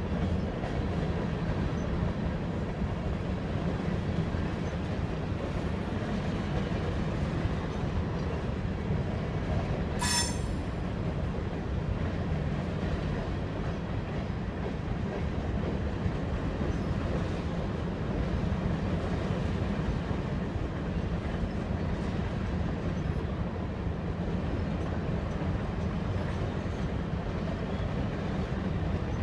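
Freight train of covered grain hopper cars rolling slowly past: a steady low rumble of wheels on rail, with one brief high-pitched metallic ring about ten seconds in.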